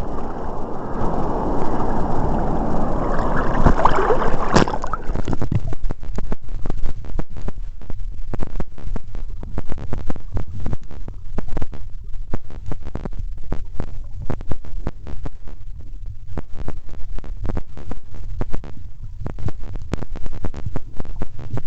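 Sea water splashing and sloshing at the waterline, then, about five seconds in, the sound turns into a muffled underwater rumble with many short clicks and crackles as the waterproof camera goes under.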